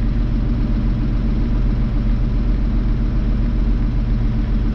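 Farm tractor's diesel engine running steadily at idle, an even low hum that does not change.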